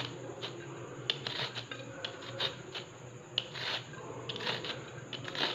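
Bitter gourd (karela) being peeled with a handheld peeler: quick, repeated short scraping strokes, a few each second, as thin strips of skin come off.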